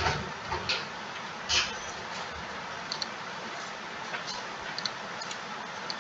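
Computer mouse clicking: a handful of short, separate clicks at irregular intervals, the loudest about a second and a half in, over a steady hiss.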